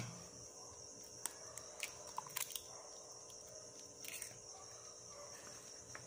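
A raw egg cracked with one sharp tap at the start, then a few light clicks and taps as the shell is pulled apart and emptied. A faint steady high hiss runs underneath.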